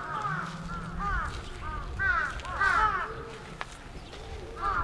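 Several birds calling over one another in quick runs of short, arching caw-like notes, loudest about two to three seconds in.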